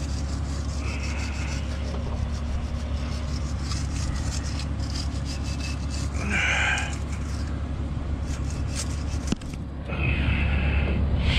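A wire brush scrubbing the water pump mounting surface on a DD15 diesel engine, cleaning it before the new pump goes on: quick, irregular rasping strokes, with a steady low hum underneath.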